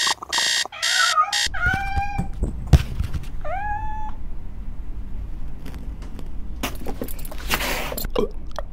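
A short electronic alarm buzzes in two pulses, then a cat meows twice, each call rising and then holding. Near the end there are a couple of brief rustling bursts.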